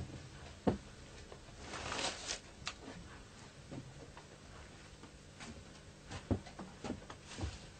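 Handling noises as a woolly tanned hide is picked up and lifted: a brief rustle about two seconds in and scattered light knocks, several of them near the end.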